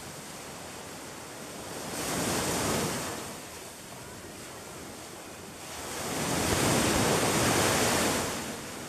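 Small waves breaking and washing up a sandy beach: a steady hiss of surf that swells twice, about two seconds in and again, longer, from about six seconds.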